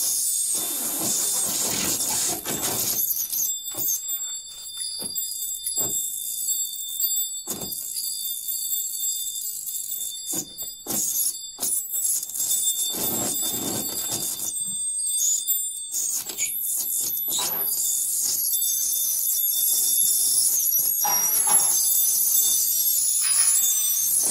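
Improvised experimental music: several high, steady squealing tones held together, with scattered sharp clicks and knocks, getting busier and louder near the end.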